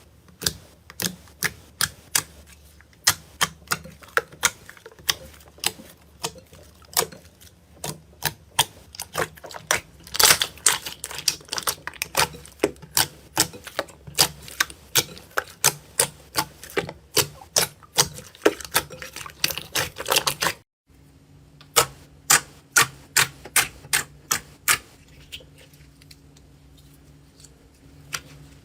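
Slime being squeezed and poked by hand, giving sharp crisp clicks and pops, several a second. There is a short break about 21 seconds in, after which the clicking resumes and then thins out and stops near the end, leaving a faint low hum.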